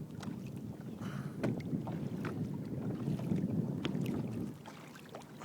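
Water rushing and splashing along a kayak's hull as it is pushed along by an electric trolling motor, with wind on the microphone. The noise eases off near the end.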